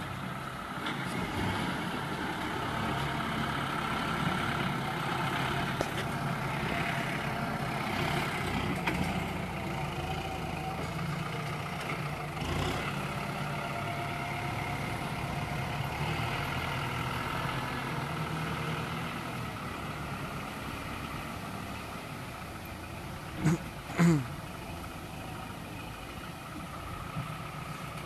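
Kubota M6040 tractor's four-cylinder diesel engine running steadily while pulling a disc harrow through loose soil. Near the end come two short, loud sharp sounds half a second apart.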